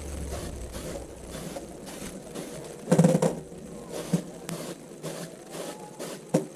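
Quick mechanical clicking, a few clicks a second, broken by heavier metal clunks: a loud cluster about three seconds in, another about a second later, and one near the end.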